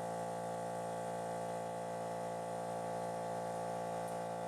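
A steady electric buzz with many even overtones, holding one pitch and level throughout.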